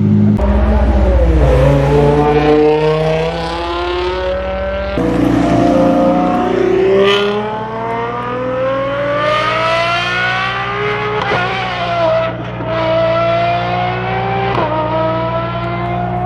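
Performance car engine accelerating hard, its pitch climbing through the gears and dropping at each upshift, with several quick upshifts in the second half.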